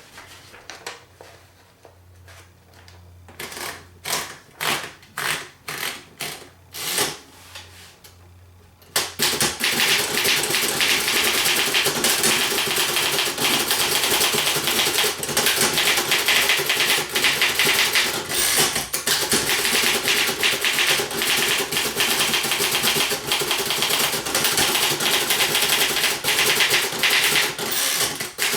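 1940 Remington Model 4P typewriter being typed on: a few slow, separate keystrokes, then from about nine seconds in a fast, continuous run of typing.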